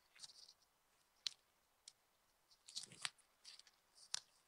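Near silence: quiet room tone with a handful of faint, sharp clicks. The clearest come about a second in, in a cluster around three seconds, and just after four seconds.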